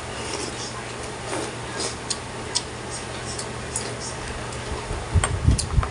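Close-miked eating sounds: sipping broth from a metal spoon and chewing, with scattered short mouth clicks and smacks over a steady low hum. About five seconds in, a few heavy low thumps, louder than everything else.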